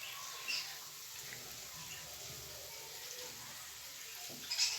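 Quiet kitchen room tone with a few light clicks and taps from handling a mixing bowl and ingredients: one about half a second in and a short cluster near the end.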